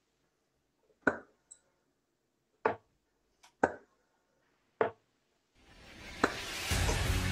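Four sharp, short knocks, unevenly spaced over about four seconds, then music fading in and building over the last couple of seconds.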